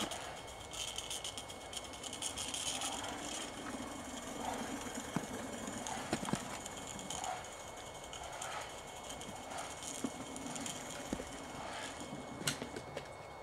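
Small SM32-gauge live-steam garden railway locomotive running through snow: a steady hiss with a few sharp clicks and knocks from the train on the track, mostly in the second half.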